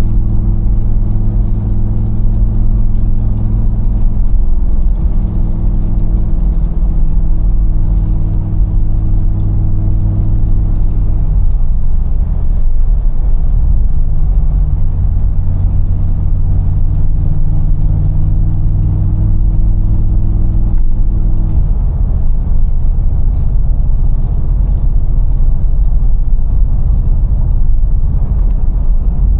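Mercedes-AMG G63's 4.0-litre twin-turbo V8 running at a steady cruise, a low, even drone. Its pitch steps down about 11 seconds in and again near 22 seconds, rising slightly in between.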